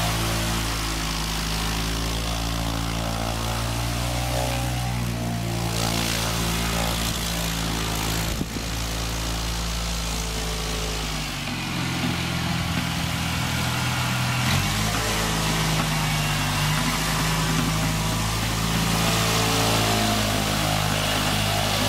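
Jabiru 2200 four-cylinder air-cooled aero engine and propeller of a light homebuilt aircraft running at taxi power. The engine note rises and falls as the throttle is worked.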